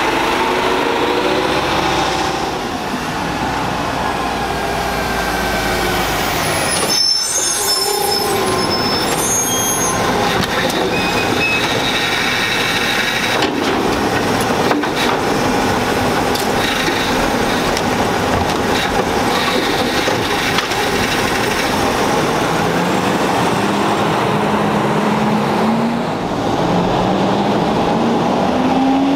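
Autocar garbage truck with a New Way automated side-loader running as it drives past and pulls away, with a high-pitched brake squeal lasting a few seconds about seven seconds in. Near the end an engine revs up, its pitch rising.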